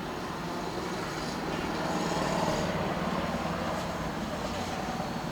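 Road traffic: a motor vehicle passing, its rumble swelling about two seconds in and easing off again.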